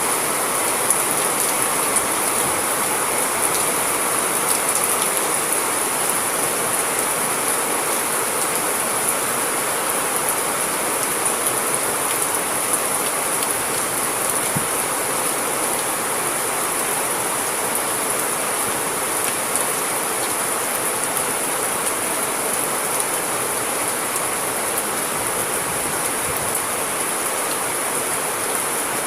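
Steady, even rainfall with scattered small drop ticks.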